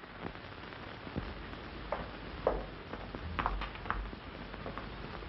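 Steady hiss and low hum of an old film soundtrack, with a few faint, scattered clicks and knocks, two of them close together about three and a half seconds in.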